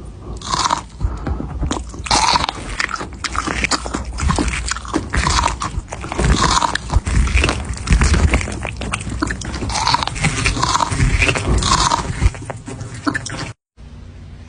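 A cat chewing crunchy food close up: a dense run of crisp crunches and bites, with louder bites about once a second. It cuts off suddenly near the end.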